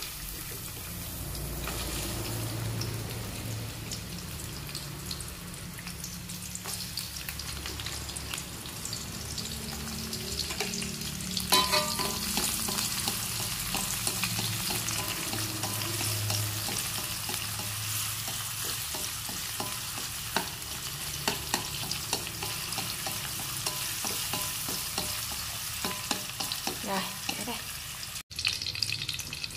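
Shallots frying in hot oil in a pan, sizzling steadily while being stirred, with small spatula clicks and scrapes against the pan. The sizzle jumps louder about eleven seconds in.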